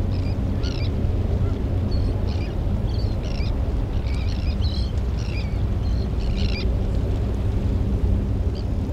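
Birds giving short, high chirping calls in quick clusters that stop about two-thirds of the way through, over a steady low rumble.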